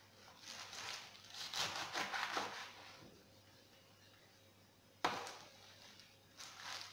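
Kitchen knife chopping spinach leaves on a cutting board: a quick run of cuts, a pause, one sharper knock about five seconds in, then more cuts near the end.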